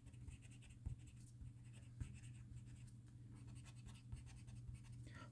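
Faint scratching of a pencil on drawing paper, short light strokes with a few small ticks, over a steady low hum.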